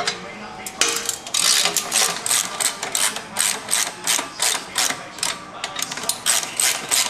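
Hand socket ratchet clicking in quick, even strokes, about three a second, as it loosens the nuts of an exhaust pipe clamp. The clicking starts about a second in.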